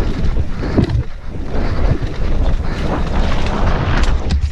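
Wind buffeting a helmet-mounted camera's microphone at riding speed, over the rumble and rattle of a mountain bike going down a rough dirt trail.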